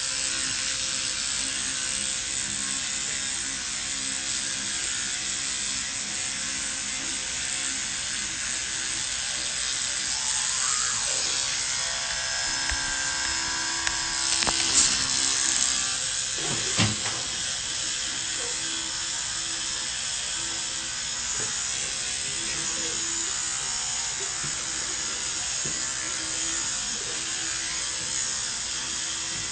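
Electric toothbrush buzzing steadily while brushing teeth, with wet scrubbing against the teeth and a brief knock about 17 seconds in.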